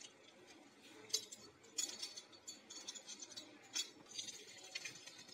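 Faint clinks and taps of kitchen utensils: a few sharp clicks spread through the seconds, with lighter ticking near the end.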